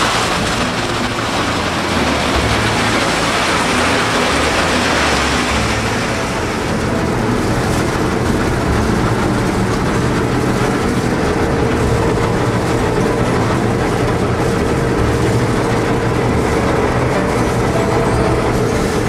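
Laverda combine harvester running steadily as it cuts wheat: a constant mechanical drone of engine and machinery. A high hiss eases off about six seconds in, leaving a steady hum.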